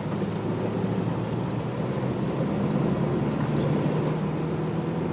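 A motor vehicle's engine running steadily with a low rumble, and faint short ticks now and then.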